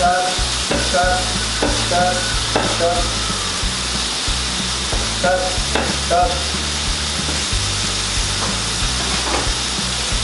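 Pork fillets sizzling steadily in a hot oiled frying pan, with a kitchen knife chopping green onions on a wooden cutting board in several short strokes, most of them in the first few seconds.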